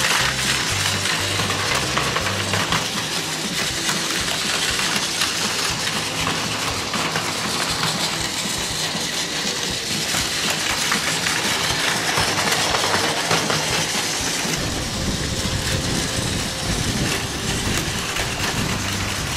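Battery-powered Plarail toy trains running on plastic track: small geared motors whirring and wheels clicking over the rails. A low rumble joins about fifteen seconds in.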